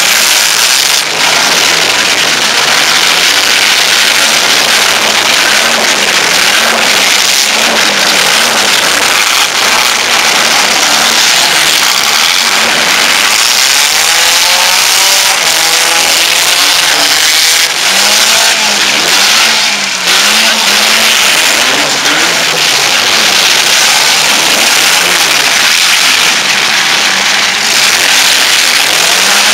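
Several four-cylinder compact cars' engines revving hard together, loud and continuous, their pitches rising and falling over one another as the cars push and spin their wheels in the dirt.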